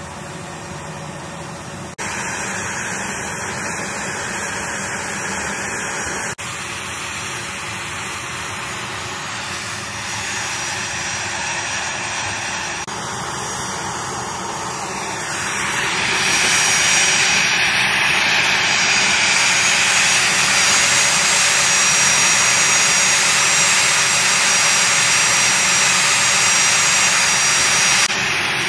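A-10C Thunderbolt II's TF34 turbofan engines running during hot-pit refuelling. The jet noise is steady with a thin high whine and grows louder and brighter about halfway through.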